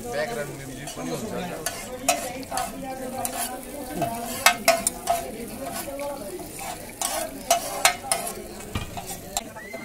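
A metal spatula and ladle scrape and clank irregularly against a large flat iron griddle pan as meat is stir-fried, with frying sizzle underneath.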